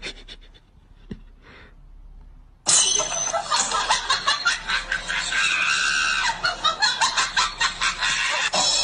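Quiet at first with a few faint clicks, then about three seconds in a sudden burst of loud laughing and shrieking that keeps on in quick pulses.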